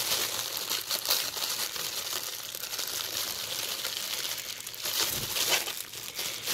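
Black plastic packaging crinkling and rustling as it is handled and picked open by hand, in irregular crackles that are loudest about five seconds in.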